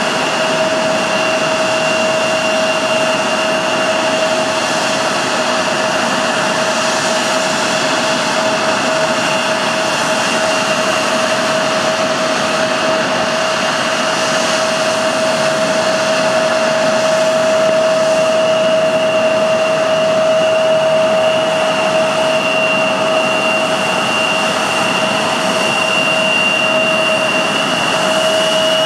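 Embraer 175's GE CF34 turbofan engines running at taxi power: a steady rushing noise with a constant high whine.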